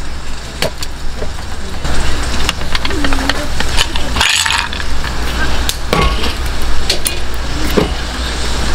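Small clicks, knocks and clinks of a glass mug and a whisky bottle and its cap being handled on a wooden table, with a brief hiss about four seconds in, over a steady low rumble.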